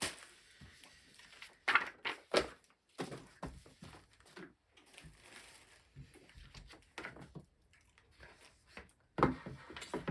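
Handling of cardboard board game boxes and card decks: irregular rustling with scattered taps and knocks, a few of them louder.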